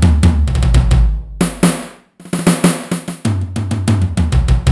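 Roland SPD-20 digital percussion pad struck with drumsticks, playing fast fills on its sampled tom-toms and snares; the toms sound rather aggressive and rock-like. Two runs of rapid strikes, with a short break about two seconds in.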